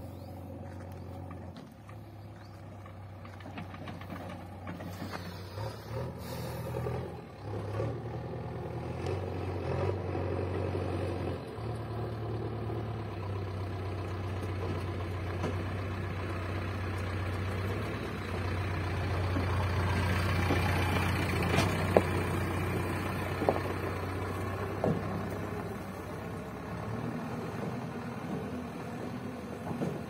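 JCB 3DX backhoe loader's diesel engine running as the machine drives up and past, its engine note shifting up and down, growing louder as it comes close and easing off as it moves away. A couple of sharp knocks near the loudest point.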